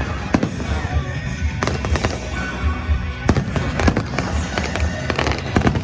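Aerial fireworks going off in a string of sharp bangs and cracks at irregular intervals, a dozen or so, over a continuous rumble, with music playing underneath.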